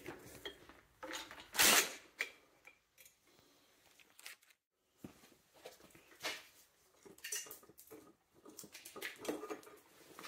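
Scattered light metallic clinks and knocks as tools and parts are handled while the turbocharger and cast-iron exhaust manifold are worked free and lifted off the engine, with the loudest knock about two seconds in.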